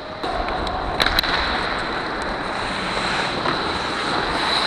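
Ice hockey skate blades scraping and carving on the ice with rushing wind noise on a body-worn camera's microphone while skating, broken by a couple of sharp clicks about a second in.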